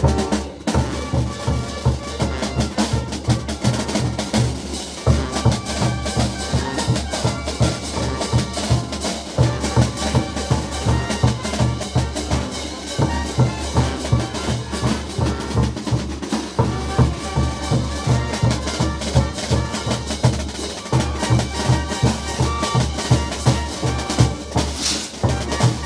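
Live street brass band playing festive dance music, the bass drum and crash cymbals keeping a steady, even beat under the horns, with a sharp crash near the end.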